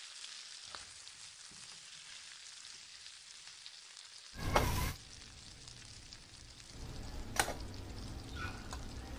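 Buttered bread sandwich frying on a hot non-stick flat pan: a steady sizzle, with a short loud burst about four and a half seconds in and a sharp click a little after seven seconds, the sizzle louder over the last couple of seconds.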